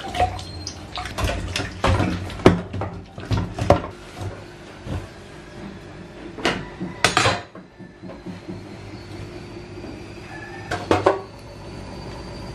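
Dishes and kitchenware clattering and knocking at a stainless-steel kitchen sink: a run of sharp knocks, two louder clatters about halfway through, and two more near the end.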